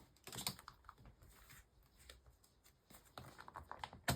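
Faint paper rustling and light tapping clicks as planner pages and tab dividers are handled, with one sharper click near the end.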